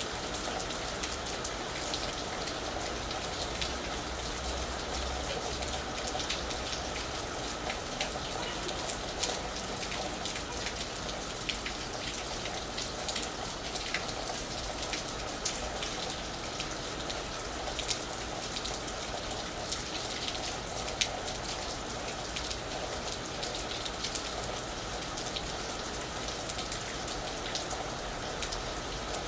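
Steady rain falling on a roof, with a dense patter of individual drops striking over an even hiss.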